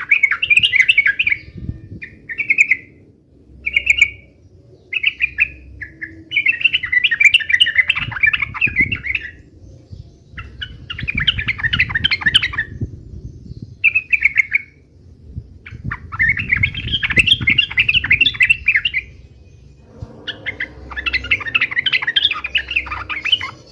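Yellow-vented bulbul (trucuk) singing in repeated bursts of quick, bubbly chattering notes: a few short phrases, then longer runs of two to three seconds with brief pauses between.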